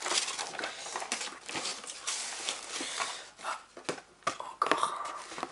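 Crinkling and rustling of plastic packaging as it is handled, dense at first and then breaking into separate rustles and light taps.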